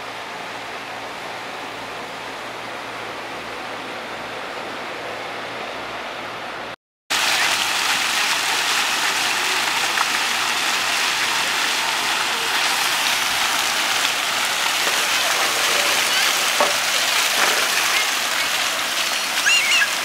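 Steady hiss of water spraying from splash-pad ground jets and a pool fountain. It starts abruptly after a short break about seven seconds in. Before it there is a quieter steady hiss.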